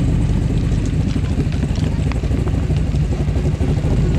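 Formula Offroad race car's engine running loud and steady on a steep sand-pit wall.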